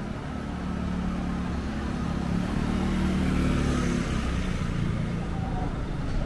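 A motor vehicle driving past. Its engine hum grows louder to a peak about three to four seconds in, then fades, over steady street traffic noise.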